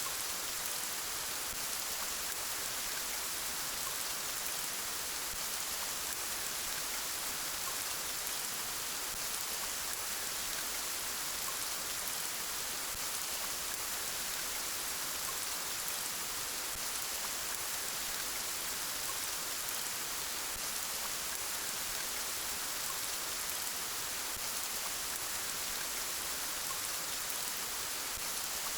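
Steady gentle rain falling, an even hiss with faint scattered drop ticks.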